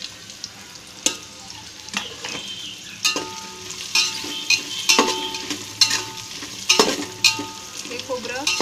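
Fresh coconut pieces sizzling in hot oil in a metal pot as a metal spatula stirs them, scraping and knocking against the pot about once a second. The pot rings briefly after some of the knocks.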